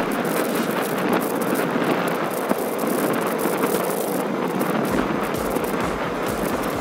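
Steady rush of wind over the microphone of a moving bicycle on an asphalt path, with low wind buffeting setting in about five seconds in.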